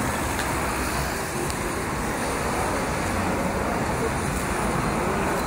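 Steady city street traffic noise from cars and a bus passing on a busy road.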